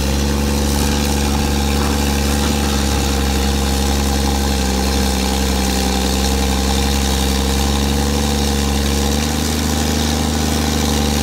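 A Samsung SE350LC-2 excavator's newly fitted diesel engine running steadily and loud, with no hood over it.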